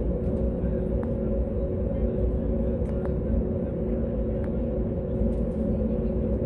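Airliner cabin noise on the ground before take-off: the jet engines running at idle as a steady low rumble with a constant hum, and a few faint clicks from the cabin.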